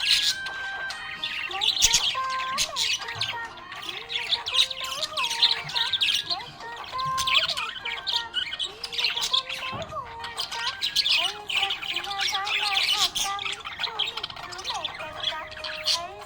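Budgerigars chirping and chattering, many quick calls overlapping without a break.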